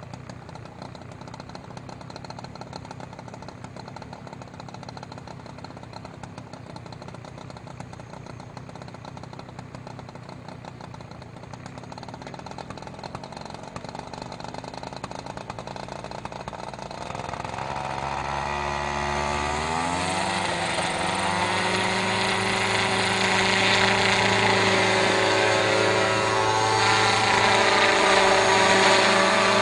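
Remote-controlled crop-spraying helicopter's engine idling low and steady, then spooling up a little past halfway, its pitch rising steeply for a few seconds as the rotors come up to speed. It then runs steady and much louder at flying speed as the helicopter lifts off.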